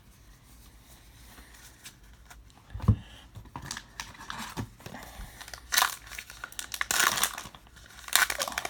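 A baseball card pack wrapper being torn open and crinkled, in irregular crackly bursts. About three seconds in there is a single dull thump.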